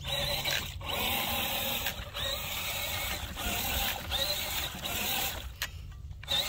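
Redcat Gen8 RC crawler's electric motor and gear train whirring as it drives through shallow water, easing off a few times, with the longest pause near the end.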